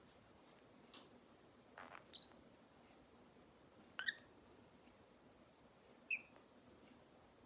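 Green-cheeked conure giving three short, high chirps about two seconds apart, with a brief soft rustle just before the first.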